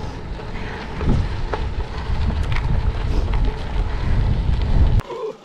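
Wind buffeting the microphone of a camera on a bicycle riding fast on a gravel road, a steady low rumble with a few sharp clicks from the bike over the gravel. It cuts off abruptly about five seconds in.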